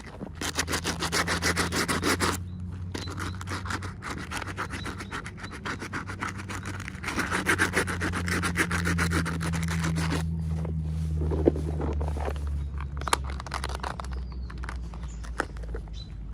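Packaging being handled during an unboxing: fast, scratchy rubbing and scraping in two long spells, with a few scattered scrapes near the end, over a steady low hum.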